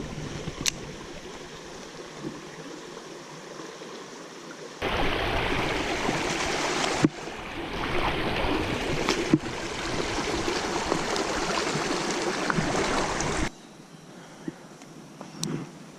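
Creek water running: a soft steady rush at first, then a much louder rush of flowing water that starts suddenly about five seconds in, breaks sharply twice, and cuts off suddenly near the end.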